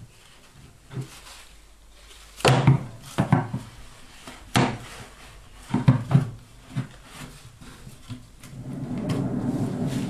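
Knocks and clunks of a top-loading washing machine's drum pulley being handled and seated back onto the drum shaft: a handful of sharp knocks between about two and seven seconds in. A steady low noise rises near the end.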